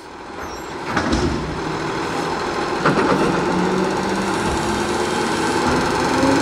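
New Way Mammoth front-loader garbage truck's diesel engine revving as its hydraulic arms lift a dumpster. Two metal clanks come about one and three seconds in. The sound fades in over the first second.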